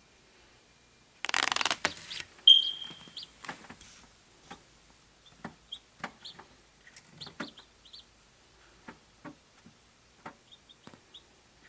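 Chick peeping in short high chirps while it hatches, with scattered small taps and clicks. About a second in there is a loud scratchy rustle, followed by one loud, clear peep.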